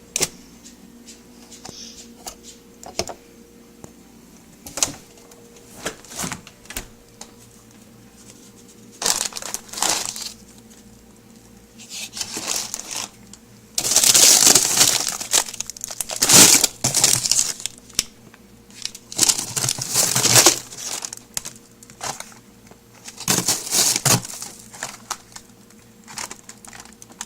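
Packaging crinkling and rustling as it is handled, in several irregular bursts, the longest and loudest around the middle, with light clicks and knocks between them.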